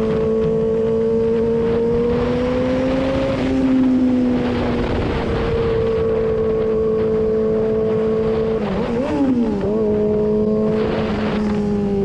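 Sport motorcycle engine running steadily at road speed, with wind rushing over the helmet microphone. About nine seconds in, the engine note wavers quickly up and down a few times, then it starts to fall near the end as the bike slows.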